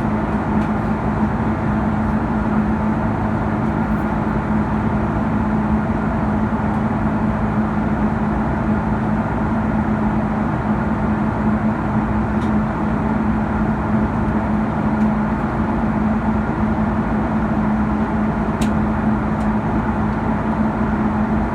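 Airbus A330-200 cabin noise in flight: a steady engine and airflow drone with a constant low hum.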